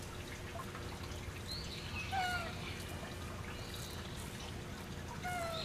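Japanese macaques giving short coo calls: two brief, falling, whistle-like calls, one about two seconds in and one near the end, over a steady low background rush.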